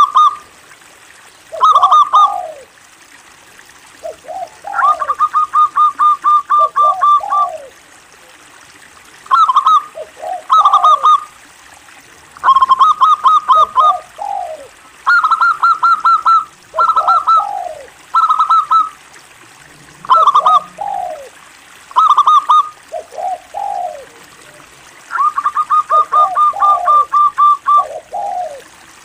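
Local Indonesian zebra dove (perkutut lokal) singing steadily: short phrases of quick, high cooing notes each dropping into lower falling notes, repeated every second or two. About 5 s in and again near the end it gives a longer run of rapid clipped notes.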